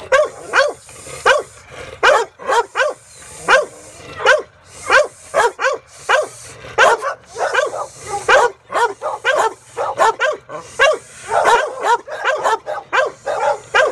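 A large blue bulldog barking over and over in a steady run of deep, sharp barks, about two a second.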